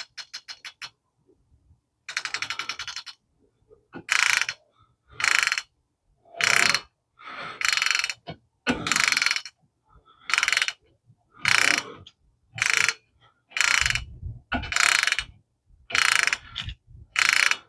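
Hand ratchet clicking as a bolt is tightened down: a couple of quick runs of clicks at first, then a steady back-and-forth with a burst of pawl clicks on each return stroke, about once every 1.2 seconds, a dozen times.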